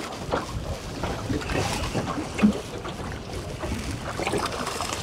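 Wind buffeting the microphone and water slapping against the hull of a small boat at sea, with small irregular ticks throughout and one brief louder sound about halfway through.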